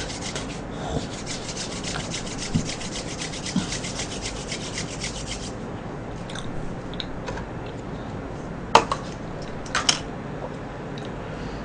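Palms rubbed rapidly and evenly together, a fast swishing that stops about five and a half seconds in. Two sharp clicks follow about a second apart, over a steady low hum.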